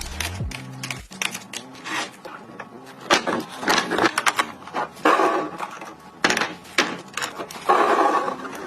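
Objects being handled and set down: an uneven run of clicks and knocks, with two longer bursts of rustling, about five seconds in and near the end.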